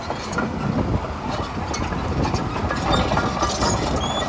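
Komatsu PC210LC-10 excavator travelling on its steel crawler tracks: the diesel engine running under a steady clatter, with short squeaks and clinks from the track links.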